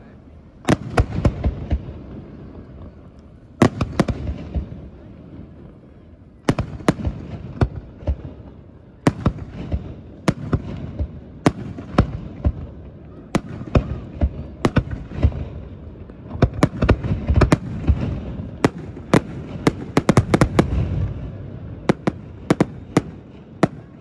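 Aerial fireworks display: sharp shell bursts going off irregularly, about one to three seconds apart, each trailed by a low rumbling echo, with a rapid cluster of bangs toward the end.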